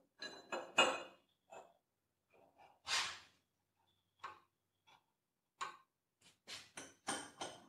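Steel workpiece being handled and seated in a milling-machine vise: scattered light clinks, taps and short metal-on-metal scrapes, with one longer scrape about three seconds in.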